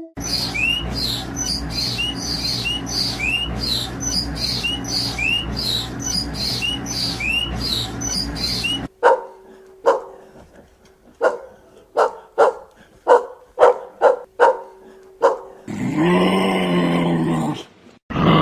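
A dog barking: about a dozen sharp, separate barks over several seconds. Before the barks comes a run of short, repeated rising chirps over a steady background noise, and near the end a longer call that bends in pitch.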